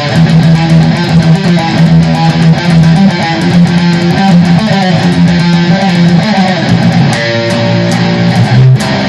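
Electric guitar being played: a loud, continuous run of picked and strummed notes over held low notes, with a short break about half a second before the end.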